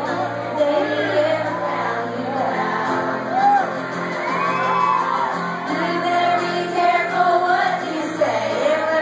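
Live country band playing with a woman singing the melody and shouts and whoops from the crowd, echoing in a large hall.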